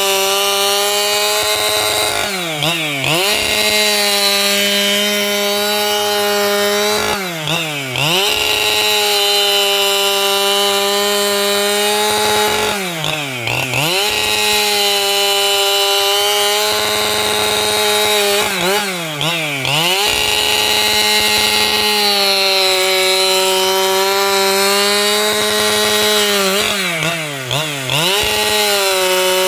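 A 585xp two-stroke chainsaw running at high revs, cutting lengthwise through wood. Five times the revs drop sharply and climb straight back as the throttle is eased off and opened again.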